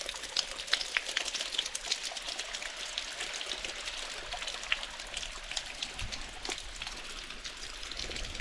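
Waterfall water splashing and trickling over rocks close by: a steady wash full of small splashes and drips.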